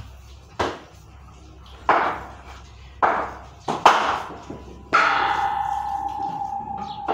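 Backyard cricket on a tiled floor: a string of sharp knocks of the ball and bat on the hard floor, then a sudden ringing tone about five seconds in that holds and slowly fades.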